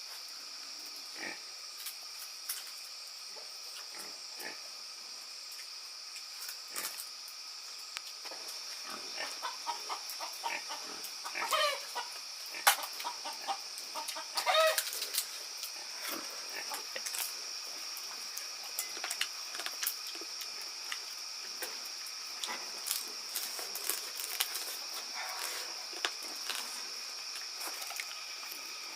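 Outdoor forest ambience: a steady high-pitched insect drone with scattered rustles and snaps, and two short, rapidly pulsed animal calls a little before and after the middle.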